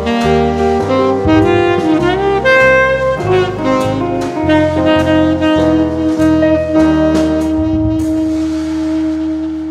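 Background jazz music with a saxophone melody over bass and drums, settling into a long held note near the end.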